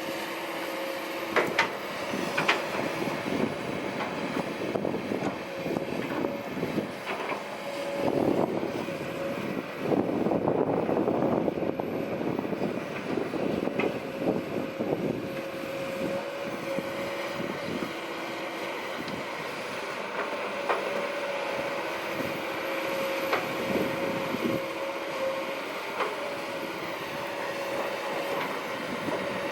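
Kobelco SK200-8 Super XM hydraulic excavator working, its diesel engine and hydraulics giving a steady whine. It grows louder and rougher for several seconds between about 8 and 16 seconds in, with a few sharp knocks along the way.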